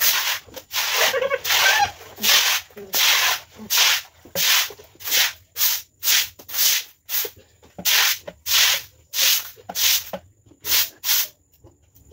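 A stiff stick broom (walis tingting) scrubbing a wet concrete floor in quick repeated strokes, about one and a half strokes a second.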